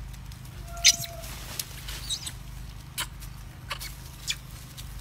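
Macaques giving short, high squeaks, about half a dozen spread over a few seconds. The loudest comes about a second in and briefly holds its pitch. A steady low hum runs underneath.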